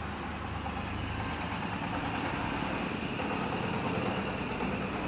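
A steady, even mechanical running noise with a low hum, like an engine idling.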